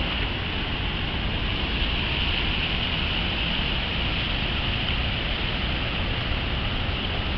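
Steady noise of vehicles passing slowly on a wet road, tyres hissing, mixed with wind on the microphone.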